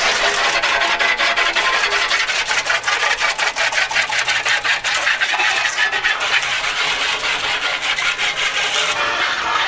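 Quick, continuous scrubbing strokes on the metal of a grill-smoker, a steady rasping as the oven-cleaner grime is cleaned off.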